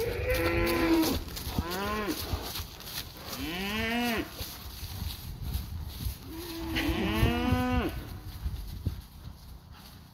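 A bull mooing four times, each call rising and then falling in pitch. The third and fourth calls are the longest, about a second each, with a pause of over two seconds before the last.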